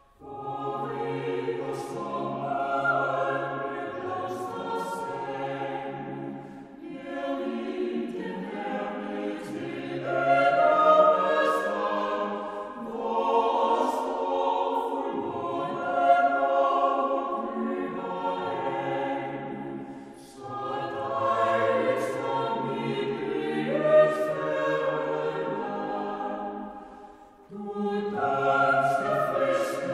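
A choir singing, in sung phrases with short breaks between them.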